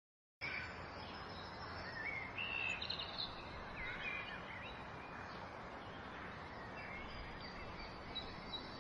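Steady outdoor background noise with birds chirping, several short chirps clustered a couple of seconds in. It starts after about half a second of silence.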